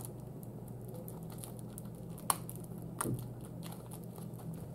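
Fingers picking and scratching at the plastic shrink-wrap on a Blu-ray case, making small crinkles and ticks, with a sharper click about two seconds in and a knock about three seconds in. A steady low hum runs underneath.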